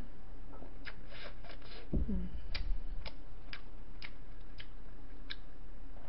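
Sharp little mouth clicks and smacks from drinking and eating soft cake, roughly one every half second, with a low knock about two seconds in, over a steady low electrical hum.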